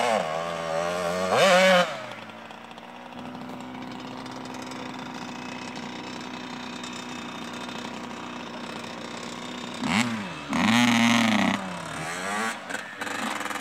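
85cc two-stroke motocross bikes (Yamaha YZ85 and Suzuki RM85) revving hard close by, the pitch climbing and dropping with each shift. The engine note then fades to a steadier, fainter hum as the bike rides away across the track. Loud revving returns about ten seconds in.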